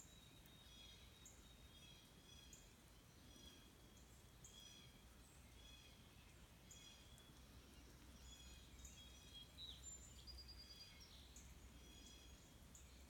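Faint wild birdsong: short high chirps repeating about once a second, with a brief trill near the end, over a low steady background rumble.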